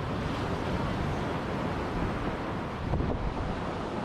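Wind buffeting the microphone over the steady wash of ocean surf, with a stronger gust about three seconds in.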